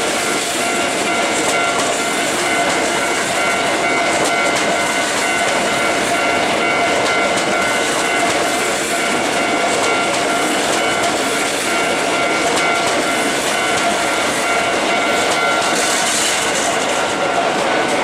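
A Hankyu electric train running close past a level crossing, its wheels clattering over the rail joints. Over it the crossing's warning bell rings steadily.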